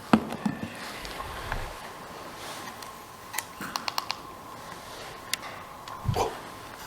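Scattered small clicks and taps, with a quick run of four or five clicks about midway and a soft low thump near the end, over a faint steady high tone.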